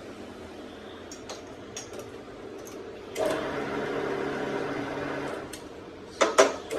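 A small electric motor runs steadily for about two seconds, then stops. Two sharp knocks follow near the end, with a few faint clicks earlier on.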